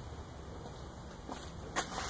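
Steady low background rumble, with a few light clicks or taps in the last half-second.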